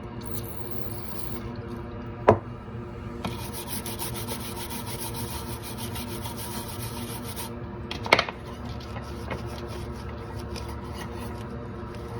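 Rapid scrubbing strokes as a laptop motherboard is cleaned, in two spells with a pause between, over a steady background hum. A sharp tap comes about two seconds in and another about eight seconds in.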